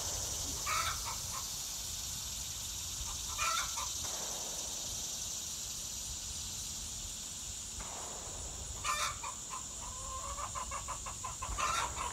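Hens in a chicken run calling, with a few short squawks spread out and then rapid, steady clucking near the end. A steady high-pitched insect drone sounds throughout.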